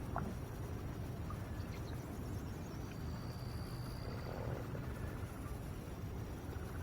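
Quiet outdoor ambience on a calm lake: a low steady rumble, with a faint thin high whistle lasting about a second, around three seconds in.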